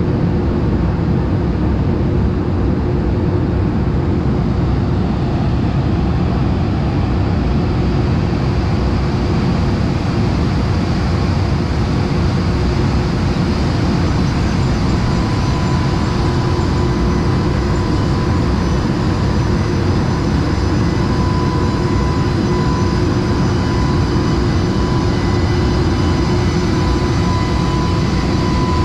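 JR Freight EH500 electric locomotive moving very slowly at the head of a container train, with a loud steady hum and rumble. A thin steady high tone joins about halfway through.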